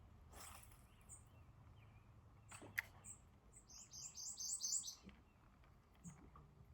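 A quick run of about seven short, high chirps, roughly five a second, from a small calling animal, over a faint low hum. A couple of sharp clicks come before it; the sharpest is just before the chirps.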